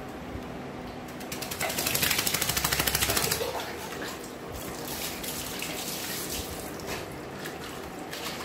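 Water splashing and dripping while a small wet dog is washed by hand, with a loud burst of rapid flapping about two seconds in that lasts under two seconds, as the dog shakes the water off its head and ears.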